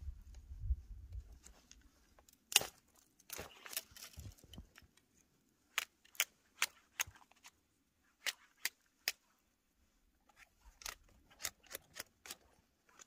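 Knife cutting thin branches from a bare tree: sharp clicks and snaps in small groups of three or four, the loudest about two and a half seconds in.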